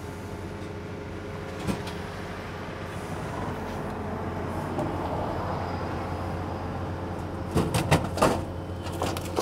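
A bento vending machine working to dispense a boxed lunch. There is a low steady hum throughout and a whir that swells in the middle. About eight seconds in comes a flurry of knocks and clatters as the box is delivered and the door is worked.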